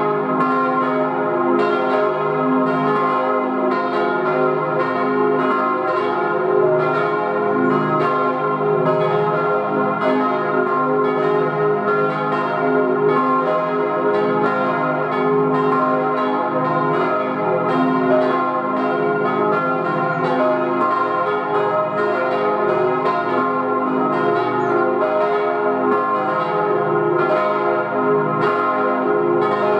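A peal of church bells, cast in 1897 by the Rüetschi foundry and tuned c', es', f' and as', ringing together from the church tower. The strokes overlap steadily, one after another, with no pause.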